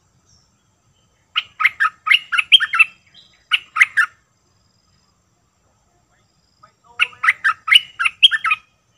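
Bulbul singing: two bursts of quick, bubbling whistled notes, the first about a second and a half in, the second near the end.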